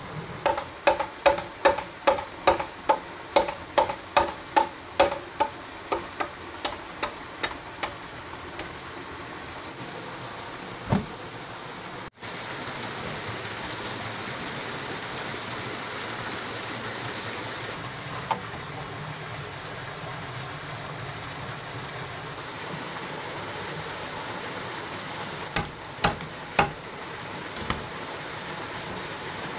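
Hammer blows on bamboo: about twenty quick, evenly spaced strikes, each with a short ringing tone, growing fainter over about eight seconds. Then the steady rush of a forest stream, with a few more knocks near the end.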